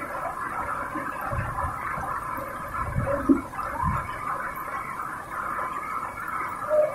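Steady rush of falling rain and running water, with a few low thumps about one and a half, three and four seconds in.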